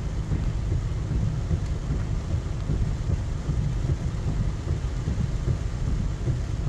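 Heavy rain on a moving car, heard from inside the cabin as it drives through a flooded street: a steady low rumble with an even hiss of rain and water over it.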